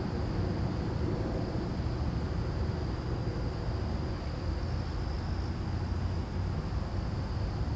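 Steady outdoor background noise: a low, even rumble with a constant thin high-pitched drone above it, typical of crickets or other insects.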